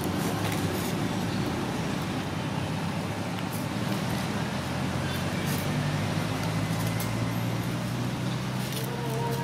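A motor vehicle engine running steadily: a low hum whose pitch rises a little about halfway through.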